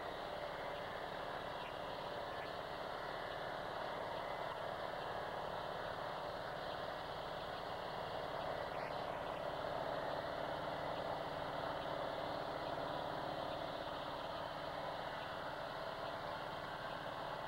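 Portable circular-blade sawmill running steadily, its engine and spinning blade sawing through a log into a beam.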